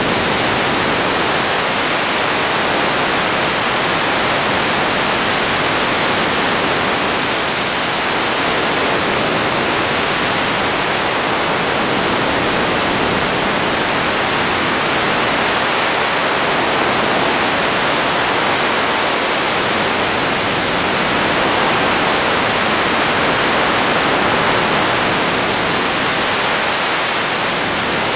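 Radio static: a steady, even hiss of noise with no tones or voices, holding a constant level throughout.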